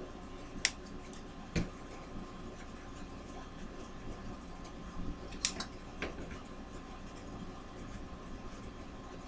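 A steady low hiss of room noise with a few small sharp clicks, four in all, two in the first couple of seconds and two around the middle.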